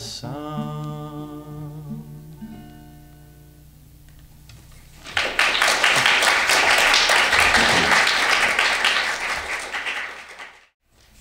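A sung song ends: the last word is held over acoustic guitar, and the guitar chords ring out and fade. About five seconds in, an audience breaks into applause, which lasts about five seconds and cuts off abruptly near the end.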